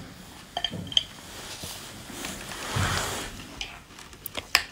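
Wet handling sounds of food in a bowl of chili-oil sauce: a few sharp clicks of a metal spoon against the bowl, and a longer wet squelch about halfway through.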